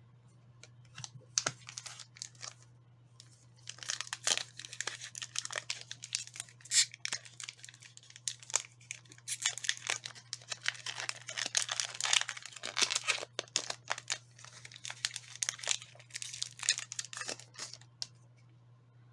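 Foil wrapper of a Pokémon card booster pack crinkling and tearing as it is opened and handled, a dense run of crackly rustles starting a few seconds in and stopping shortly before the end, over a faint steady low hum.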